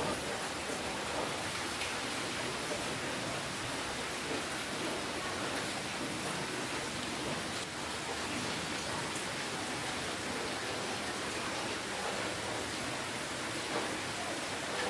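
Steady rainfall, an even hiss with a few faint drop ticks.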